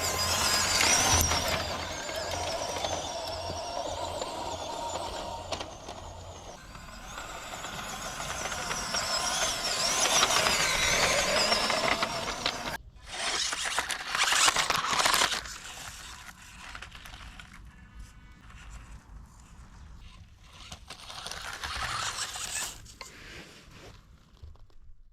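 Small brushed electric motor and gear drive of a WPL B16 6x6 RC truck whining as it is driven, its pitch rising and falling with the throttle. The sound breaks off suddenly about a dozen seconds in and starts again.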